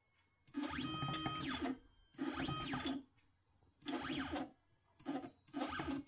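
Stepper motors of a homemade CNC mill jogging the cutter along an axis in about five short moves. Each move is a whine that rises in pitch, holds, then falls as the motor speeds up and slows down.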